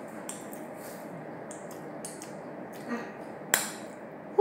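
Small eating and table noises: a scatter of soft clicks and smacks, with one sharper click about three and a half seconds in.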